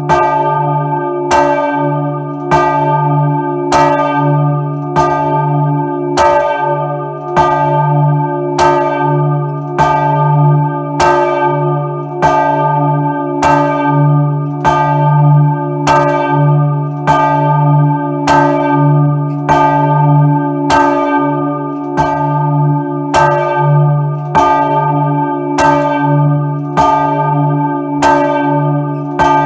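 Large swinging church bell, the bell named Maria, rung by hand with a rope, heard from right beside it in the belfry. Its clapper strikes evenly about once every 1.2 seconds, and each stroke rings on into a deep, steady hum that never dies away between strokes.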